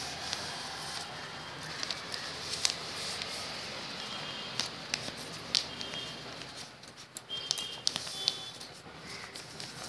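Sheet of A4 paper being folded and creased by hand: rustling with many sharp little taps and crackles. Now and then short high clinks ring out, from glass and metal bangles knocking together on the moving wrists.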